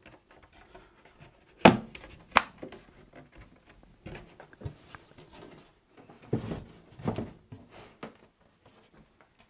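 Polystyrene beehive lid being handled: two sharp clicks about two and two and a half seconds in, a few small ticks, then duller rubbing knocks of foam on foam as the lid is set onto the hive box.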